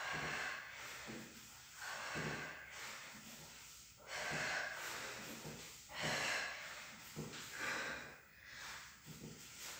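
A woman breathing hard while doing crunches, with a forceful breath about every two seconds in time with each curl-up.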